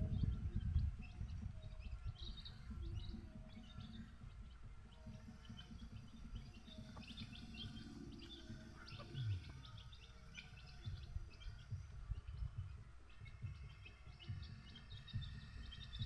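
A flock of native chickens chirping and peeping while being fed: many short, high chirps scattered throughout, over a low rumble.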